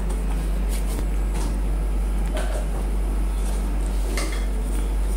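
Scattered light clicks and taps of a plastic-handled paintbrush and painting things being handled, over a steady low hum.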